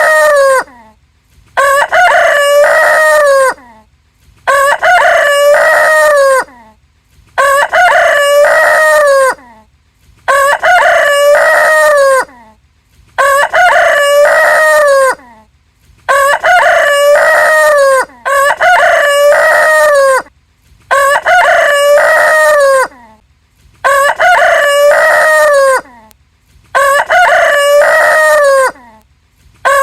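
Rooster crowing, the same cock-a-doodle-doo repeated evenly about every three seconds, about ten times. Each crow lasts roughly two seconds, with silence between.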